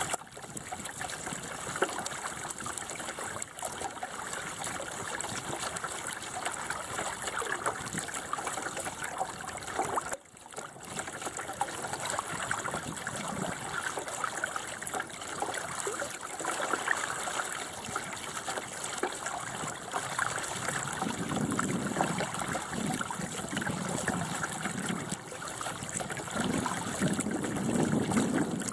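Water rushing and gurgling along the hull of a small Bauer 10 sailing dinghy under way, a continuous wash. It drops out briefly about ten seconds in and grows heavier in the last several seconds.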